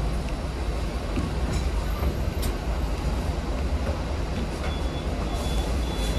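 Hong Kong tram, a VVVF-driven car, running along its track: a steady low rumble of wheels and running gear with a few light clicks. A faint thin high tone comes in over the last second and a half.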